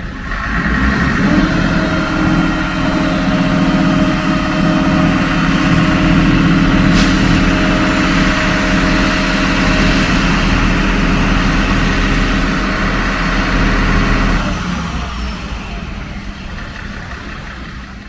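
Heavy truck engine running: it revs up about a second in, holds steady, then drops back and fades out near the end. A single sharp click is heard about halfway through.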